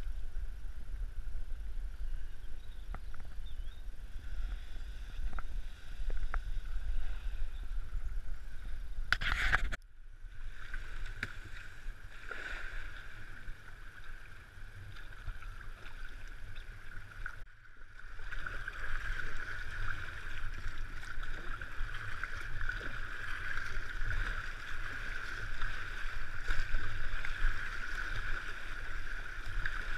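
River water rushing and splashing around a whitewater kayak as it paddles down a shallow, choppy run, heard from a camera on the boat. For about the first ten seconds there is only a low rumble, which cuts off abruptly. The water noise is louder in the last third, through rougher water.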